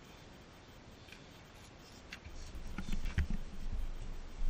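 A few faint ticks, then from about two seconds in, uneven low thumps and rubbing as someone leans in and works at the quad bike's exhaust header by hand.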